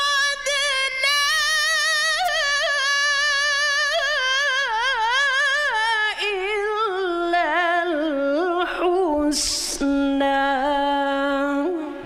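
A woman reciting the Qur'an in the melodic tarannum style into a microphone: long ornamented held notes with a wavering pitch. In the second half the melody steps down to a low held note, and a short hiss comes about nine and a half seconds in.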